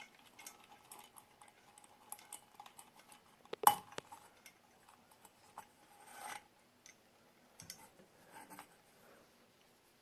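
Light clicks and metallic clinks from handling a ceiling fan pull-chain switch and its metal bead chain, with one sharp click a little under four seconds in.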